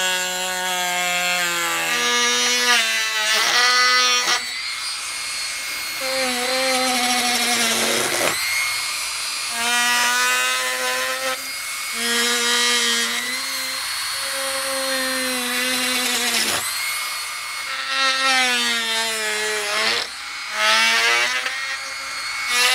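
Dremel rotary tool running in several bursts as it cuts a plastic part. Its high whine sags and wavers in pitch under load and winds down twice between cuts.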